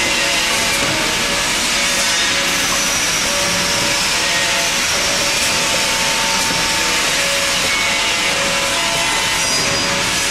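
A4 paper roll-film wrapping machine running: a steady, loud mechanical whirring hiss with a few faint humming tones.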